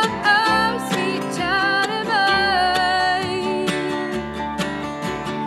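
Bluegrass-style acoustic band music: a woman singing a slow melody with vibrato over strummed acoustic guitar and upright bass.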